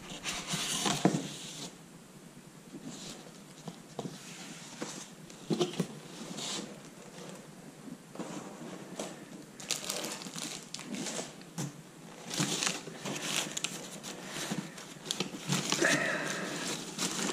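Crumpled packing paper crinkling and rustling, with cardboard and foam rubbing and light knocks, coming on and off as things are handled inside a shipping box.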